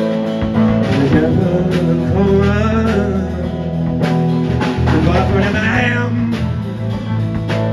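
A rock band playing an instrumental passage: guitars and bass over a steady drum beat. A lead melody comes in twice, bending and wavering in pitch.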